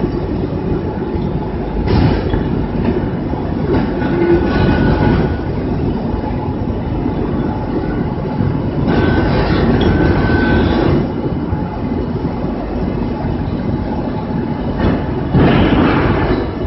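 Two-axis fettling grinder at work on a casting: a steady, heavy mechanical rumble that grows louder in several stretches, with a faint thin whine over it at times.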